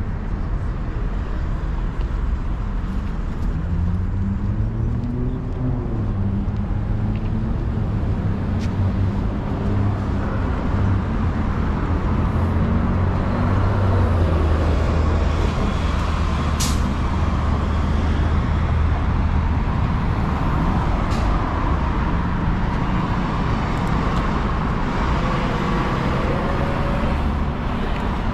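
Street traffic with a large vehicle's engine running close by. Its pitch rises about four seconds in, holds steady, then eases off, with a brief sharp hiss about two-thirds of the way through.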